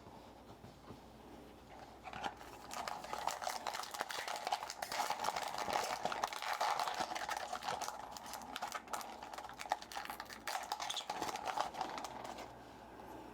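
Trading cards and a card-pack wrapper being handled up close: a dense run of small crackles and clicks that starts about two seconds in and fades out near the end.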